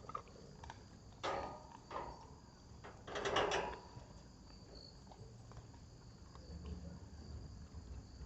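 Crickets chirring steadily, with a few short bursts of a pit bull gnawing and biting on a hard rib bone; the loudest comes about three seconds in.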